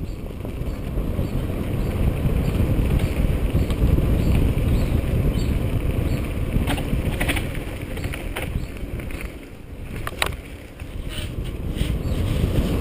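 Mountain bike rolling fast down a dirt singletrack: a steady low rumble of tyres and wind on the camera's microphone, with a few sharp clicks and rattles from the bike over bumps, the loudest about ten seconds in.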